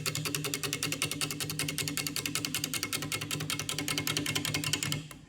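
Bowl gouge taking its first cuts on an out-of-round log blank spinning on a wood lathe: a rapid, even run of knocks as the tool meets the high spots each turn, over the lathe's steady hum. The cutting stops abruptly near the end.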